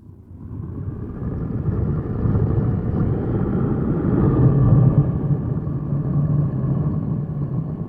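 Monster sound effect made for Mechagodzilla, a robotic Godzilla: one long, low, droning sound that swells over the first couple of seconds, is loudest around the middle and fades out near the end.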